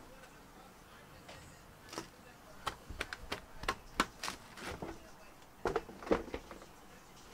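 A quick run of short clicks and knocks, the plastic and metal casing of an all-in-one PC being handled and turned over on a desk.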